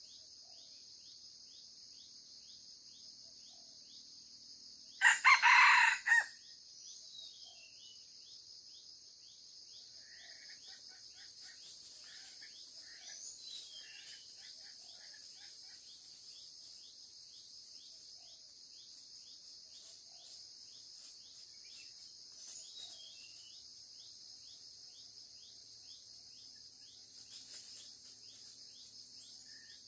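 A young wild red junglefowl cock crowing once, loud and about a second long, roughly five seconds in, while it is caught by the leg in a snare. A steady high insect drone runs underneath, with a few faint bird calls.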